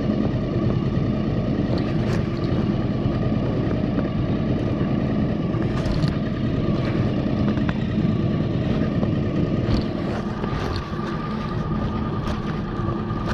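Suzuki outboard motor running steadily at trolling speed, a continuous engine hum with a thin steady whine over it. A few light clicks or knocks are scattered through it.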